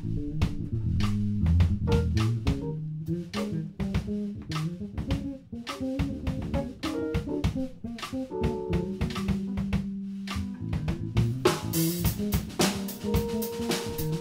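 Live band of drum kit, electric guitar and keyboard playing an instrumental funk tune, with busy drum hits throughout. A cymbal crash comes in about eleven and a half seconds in and rings on.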